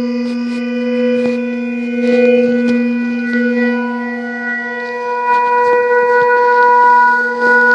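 Sustained droning tones: a steady low hum with higher overtones held over it, the upper tones swelling about five seconds in, while scattered sharp clicks and crackles sound throughout.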